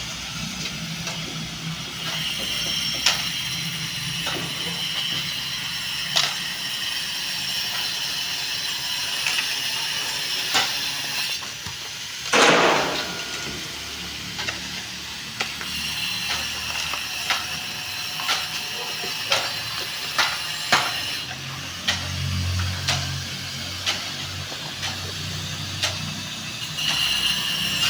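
Mechanical clicking and knocking at irregular intervals over steady background noise, with one loud rush of noise about twelve seconds in.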